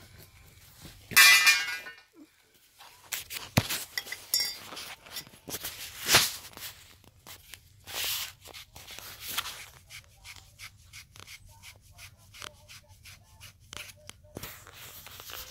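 Copper pipe fittings being handled: irregular metallic clicks and taps. A louder clink rings briefly about a second in, and there is a sharp tap about six seconds in.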